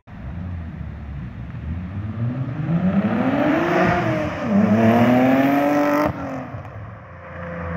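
Audi B5 S4's 2.7-litre twin-turbo V6 accelerating hard from a launch: the engine note climbs in pitch, drops at a gear shift about four and a half seconds in, then climbs again before cutting off suddenly about six seconds in.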